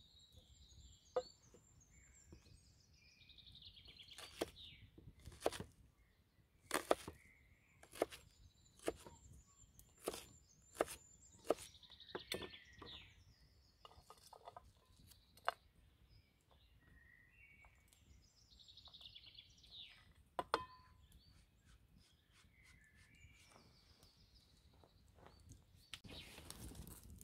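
Kitchen knife chopping onion on a wooden chopping board: irregular sharp knocks, with songbirds singing throughout. Near the end a campfire's steady hiss comes in.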